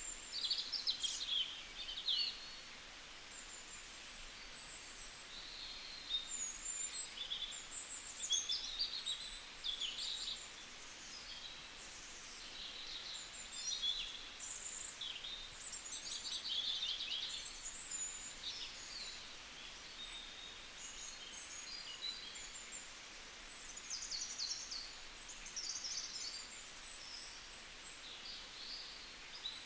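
Several small birds chirping and trilling, with many short calls overlapping one another throughout, over a steady background hiss.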